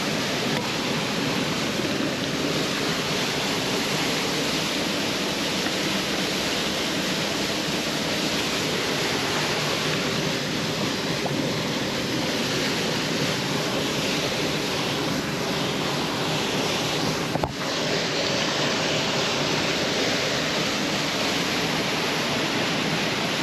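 Waterfall crashing into a creek pool: a loud, steady rush of falling water, with one short click and a brief drop in level about seventeen seconds in.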